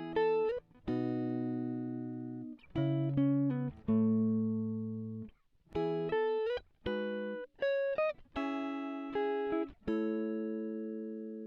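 Background music: a plucked guitar playing a slow melody of single notes and chords, each note struck and left to ring and fade.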